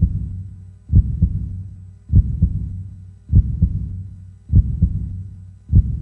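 Heartbeat sound effect: low double beats, lub-dub, repeating evenly about every 1.2 seconds, five times. Each pair fades into a low hum before the next.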